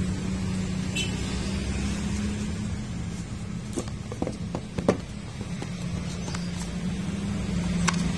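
Smartphone retail box and packaging being handled during an unboxing: a handful of light clicks and taps about four to five seconds in, one sharper than the rest, over a steady low hum.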